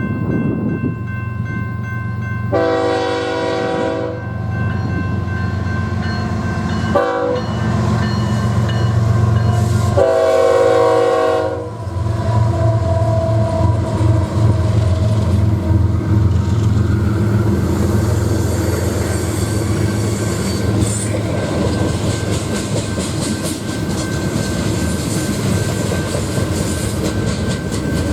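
Train passing: the locomotive horn sounds three times (long, a short toot, long) over a steady diesel rumble, and after the last blast the wheels clatter over the rail joints.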